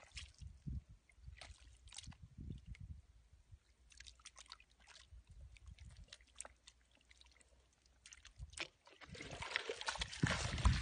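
Hands squelching and sloshing in wet mud and shallow water, with small scattered splashes. About nine seconds in, muddy water is poured out of a plastic bucket onto the mud, the loudest sound.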